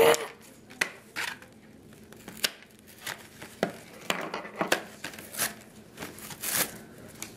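Plastic toy packaging being crinkled and pulled at by hand to tear it open: irregular crackles and sharp snaps.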